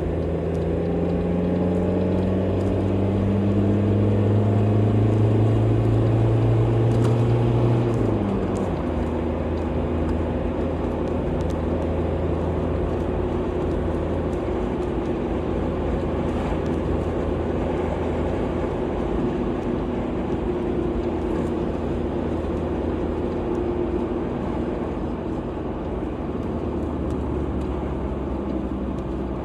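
Car engine pulling hard, its pitch slowly rising and getting louder, then dropping suddenly about eight seconds in. After that it settles into a steady cruising drone with road noise.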